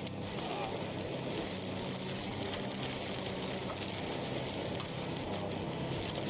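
Steady rushing storm noise of wind and rain, with a low hum underneath.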